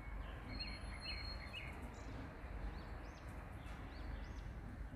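Soft, steady sizzle of spice masala frying in oil in a pan, with a few faint bird chirps about half a second to a second and a half in.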